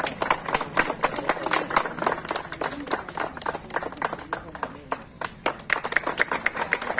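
A small group of people clapping by hand: a quick, uneven patter of separate claps.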